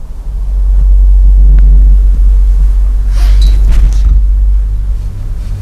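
Loud, deep rumble of handling noise and wind on a lavalier microphone with a furry windscreen as it is held in the hand, with a few brief rustling scrapes about three to four seconds in.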